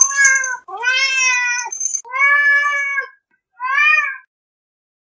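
A domestic cat meowing four times in a row, each call half a second to a second long, the third the longest.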